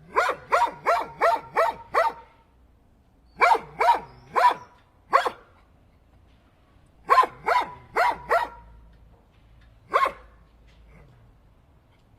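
A dog barking in quick runs of short barks: about six in a row, a pause, four more, another four, then a single bark.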